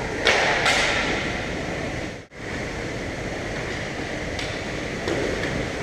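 Hockey game noise in a rink: a steady hubbub with two sharp cracks of stick or puck hits in the first second and a few lighter knocks later. The sound drops out briefly in the middle.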